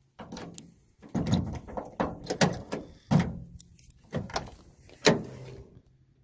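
Door lock and handle of a 1986 Toyota pickup's driver door: a key working the lock, the handle clicking and the door opening, followed by a series of clunks and knocks, the loudest one about five seconds in.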